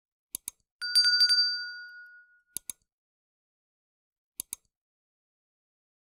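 Sound effects of a subscribe-button animation: three pairs of mouse clicks, and about a second in a bright notification bell ding that rings out and fades over about a second.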